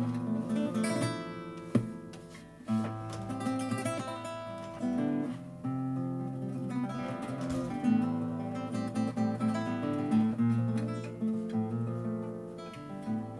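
Solo acoustic guitar playing a song's instrumental introduction: plucked melody notes and chords ringing over a bass line, with one sharp click a little under two seconds in.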